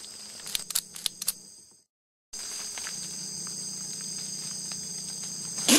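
Steady chorus of forest insects, several even high-pitched tones together, with a few sharp clicks in the first second and a half. The sound drops out briefly before the middle, and a short loud sound comes at the very end.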